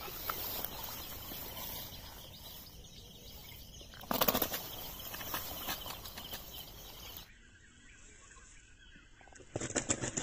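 A freshly landed snakehead (murrel) thrashing in grass and being grabbed by hand: rustling and slapping in two short loud flurries, one about four seconds in and one near the end.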